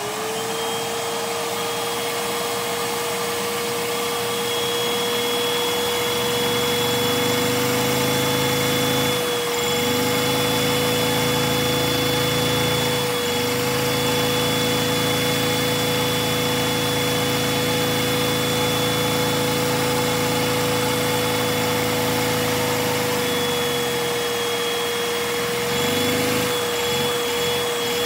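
Vacuum cleaner spinning up and then running with a steady high whine, its hose held to a Lego two-cylinder vacuum engine to drive it. About five seconds in a lower hum joins, dipping briefly twice, as the suction works the engine.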